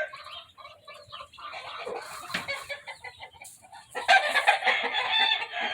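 Roosters clucking and calling, much louder from about four seconds in.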